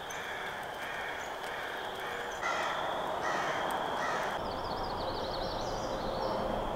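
A bird cawing: about five harsh caws less than a second apart, followed by a higher warbling bird song near the end.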